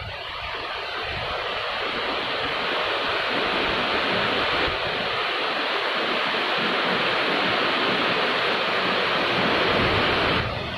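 Rain falling: a steady hiss that builds over the first couple of seconds and drops slightly just before the end.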